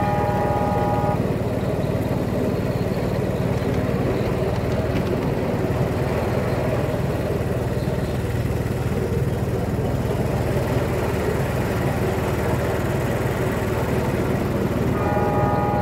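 Miniature railway locomotive's small engine running steadily as the train travels along the track. Its horn sounds in a held tone at the start, stops about a second in, and sounds again near the end.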